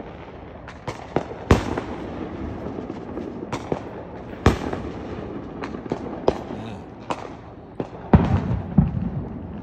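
Consumer fireworks going off all around: an irregular series of sharp bangs and pops, with the loudest at about a second and a half, at four and a half seconds, and a close cluster near the end, over a steady background of more distant crackling.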